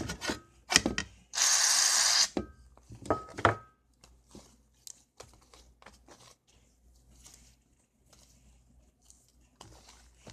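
Hands working sticky fluffy slime in a container: a few sharp knocks and short ringing clinks, a loud hiss lasting about a second near the start, then only faint scattered sticky clicks.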